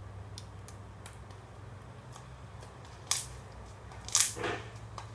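Clear water slime squelching and smacking as a hand presses it against a tabletop: a sharp squish about three seconds in and a louder, longer one about a second later, over a low steady hum.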